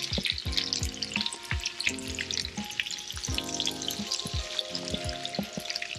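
Fish patties sizzling and crackling as they pan-fry in olive oil and melted garlic butter in a skillet, with scattered knocks as a wooden spatula turns them.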